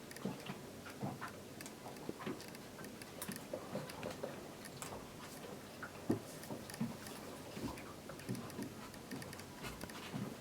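Faint, irregular small clicks and taps of hands handling a laptop's plastic case parts and small screws during reassembly of its hinges.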